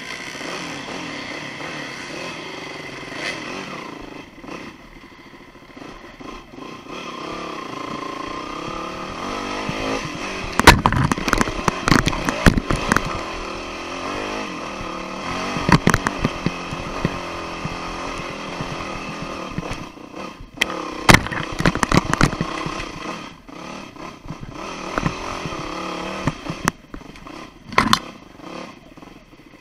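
Off-road dirt bike engine running, its pitch rising and falling with the throttle while riding single-track trail. Several sharp knocks and clatter break in through the middle and near the end, as the bike hits rocks and roots.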